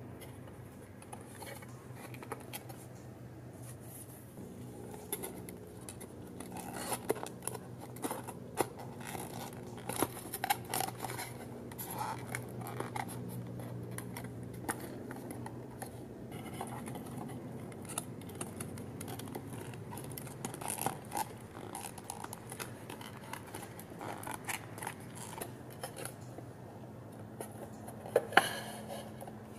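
Stiff printed paper card being folded and handled: scraping and rubbing of card with many small clicks as wall tabs are slotted into place, and a sharper click near the end.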